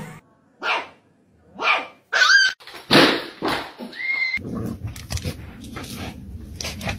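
Dogs barking: several short, separate barks, one rising and falling in pitch, followed by a steady rough noise with small knocks.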